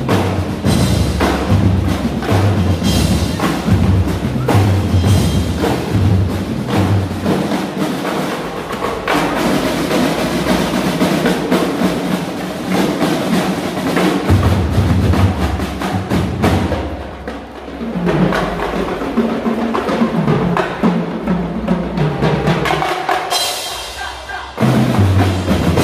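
A marching drumline of a drum and lyre corps plays a fast percussion cadence on snare drums, tenor drums and bass drums. The heavy bass drum beats drop out for stretches and come back. About a second before the end, a loud hit with a cymbal crash lands.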